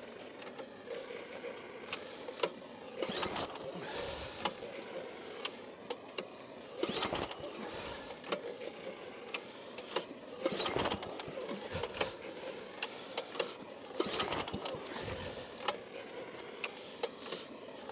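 Small air-cooled Chinese diesel engine being cranked by its recoil starter, a pull every few seconds, cold-soaked and not firing, over the steady hiss of a propane torch heating the engine.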